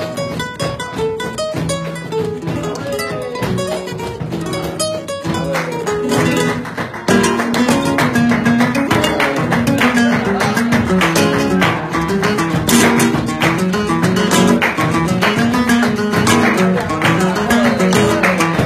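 Flamenco guitar playing bulerías: picked melodic runs, which turn louder and strummed about seven seconds in.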